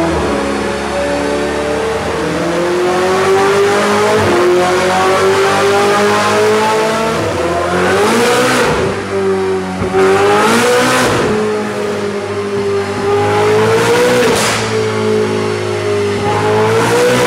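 Ferrari 488 GTB's twin-turbo 3.9-litre V8 running loaded on a chassis dyno, its note climbing slowly. About four times the pitch briefly swells and falls back with a short rush of noise.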